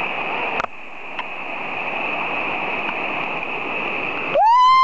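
Small waterfall rushing close to the microphone, with a single knock about half a second in. Near the end a loud, high-pitched human yell begins, rising and then held.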